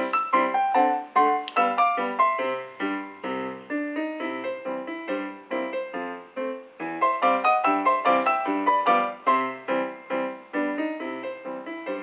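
Piano playing a quick, even run of notes, about four or five a second, with a short break a little past halfway.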